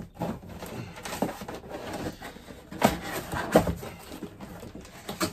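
Cardboard box being opened by hand: flaps pulled and cardboard rustling and scraping, with a few sharper rips and knocks, the loudest about three and three and a half seconds in.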